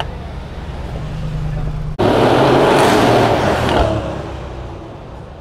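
A car passing close by on the street: a low engine hum building, then engine and tyre noise jumping to loud about two seconds in and fading away over the next couple of seconds.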